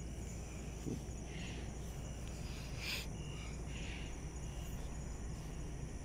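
Steady background hum with faint high-pitched chirping, and a single soft tick about three seconds in.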